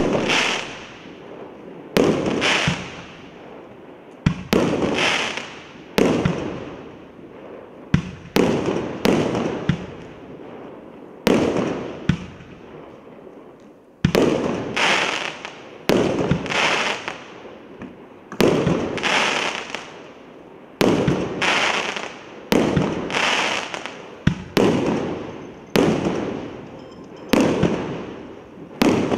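A 19-shot, 1.2-inch consumer firework cake firing shot after shot, roughly one every second: each a sharp bang followed by a tail of noise that fades over about a second.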